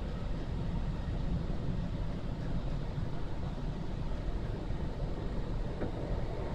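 An automatic car wash heard from inside the car's cabin: the wash's cloth strips sweep and rub across the windscreen over a steady low rumble.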